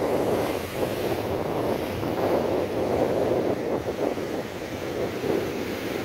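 Heavy storm surf breaking and churning against concrete seawall blocks, in steady surging waves, with wind buffeting the microphone.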